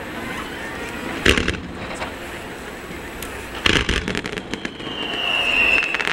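Aerial fireworks bursting: a sharp bang about a second in, then a quick cluster of bangs and crackles near four seconds. A high whistle follows, falling slightly in pitch toward the end.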